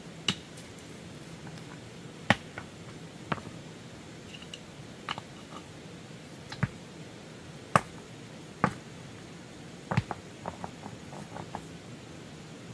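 A series of sharp knocks and clicks, a dozen or so, spaced unevenly over several seconds, like hard objects being handled and struck together.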